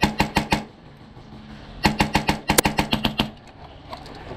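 Airsoft rifle firing full-auto: a short burst at the start, then a longer burst of about a dozen shots about two seconds in, at roughly nine shots a second.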